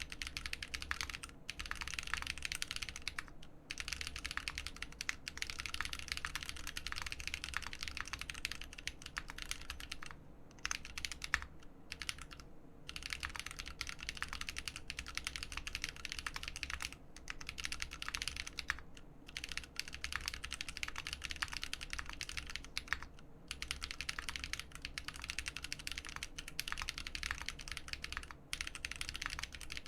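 Fast, continuous typing on a custom mechanical keyboard with AEBoards Naevy switches in an aluminium plate and RAMA Thermal case, with GMK keycaps; the keystrokes blur into dense runs, broken by brief pauses.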